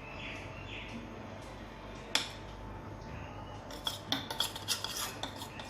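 A utensil clinking and scraping against a cooking pot while jowar flour is mixed into boiling water: one sharp knock about two seconds in, then a quick run of clinks near the end.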